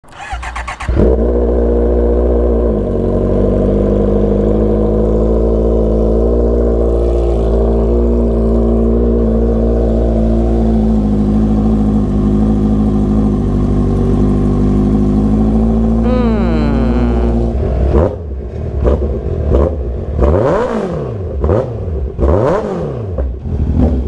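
Honda CB650R's inline-four engine running at a steady idle after a short sound at the very start. About sixteen seconds in it revs up and drops back, then pulls away, the pitch climbing and falling again and again as it accelerates through the gears.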